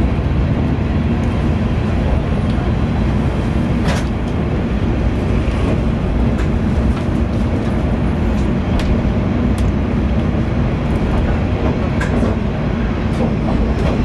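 Diesel railcar running under power as it pulls out of a station, heard from inside the passenger cabin: a steady low engine drone and rumble, with a few sharp clicks along the way.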